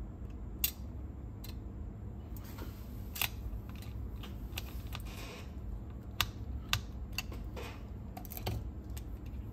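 Small tools and parts of a cassette deck's tape mechanism being handled: about eight sharp, separate clicks at uneven intervals, with a few brief light scrapes, over a steady low hum.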